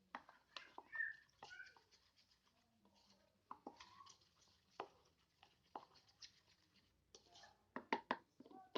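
Scattered soft clicks and small sticky squishes of slime being worked by hand, with a quick run of snaps near the end.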